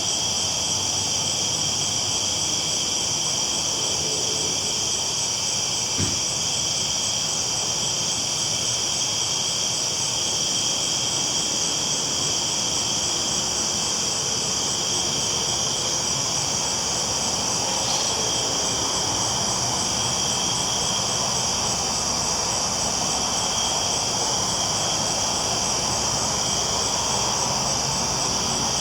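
Steady, unbroken running noise of a train rolling along the tracks, an even hiss over a low rumble, with one faint click about six seconds in.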